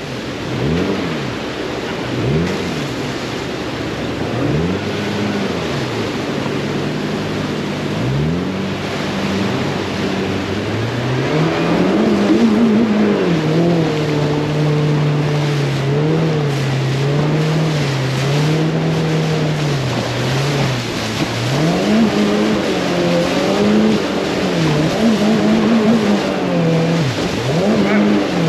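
Boat outboard motor revved up and down several times in quick succession, then climbing to higher revs and held there with its pitch wavering, over rushing water noise. A few quick rev swoops return near the end.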